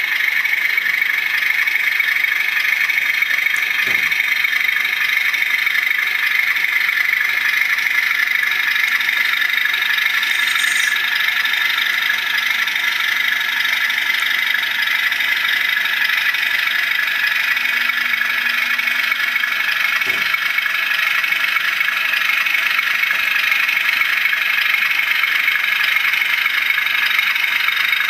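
The sound decoder in a Bachmann OO-gauge class 37 model plays an English Electric 12CSVT diesel engine running steadily through the model's small loudspeaker, with little bass. Two faint clicks come about four seconds in and again near twenty seconds.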